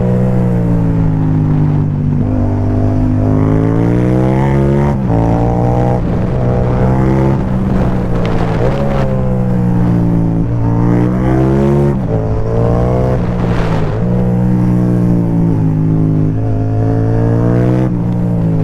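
Yamaha MT-07's parallel-twin engine through an Akrapovic carbon low-mount exhaust with the dB killer removed, accelerating hard. Its pitch climbs and then drops sharply at each gear change, four or five times.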